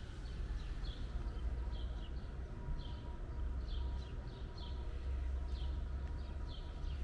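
Small birds chirping in short, high, slightly falling chirps, irregularly about twice a second, over a steady low rumble.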